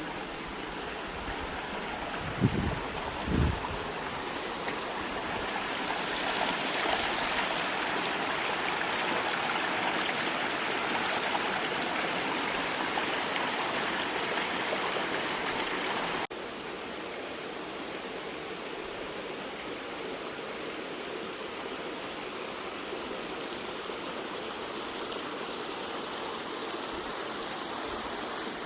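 Steady rushing of running water in a rain-forest stream, a constant hiss. Two short low bumps come early on, and about halfway the sound drops suddenly to a quieter level.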